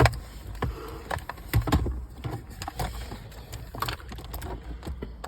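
Irregular knocks and clicks of hands and tools working on a car's interior plastic trim, the loudest right at the start and about a second and a half in, over a steady low rumble.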